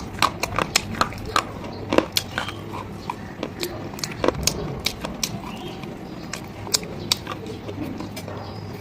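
Slate stone being bitten and chewed up close: many sharp, irregular cracks and snaps, thickest in the first few seconds and thinning out later.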